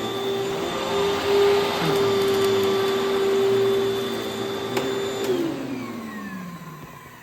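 Vacuum cleaner motor running with a steady whine, then switched off with a click about five seconds in and winding down, its pitch falling as it fades.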